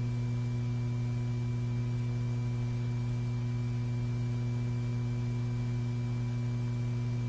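Low steady electrical hum with a few fainter, higher steady tones over faint hiss, unchanging throughout; no mechanical sounds.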